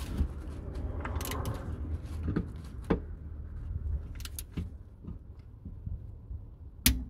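Scattered small clicks and knocks from tools and the differential plug being handled under the van, the sharpest one near the end, over a low steady rumble.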